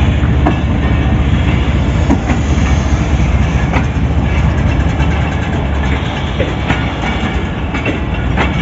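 Pakistan Railways passenger coaches rolling past at close range: a steady, loud rumble of the running gear, with irregular wheel clacks over the rail joints.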